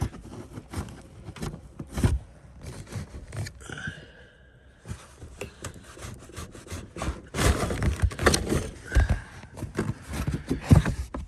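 Plastic interior trim panel being pried and pulled loose with needle-nose pliers: irregular clicks, knocks and scraping as the clips work free, busiest in the second half.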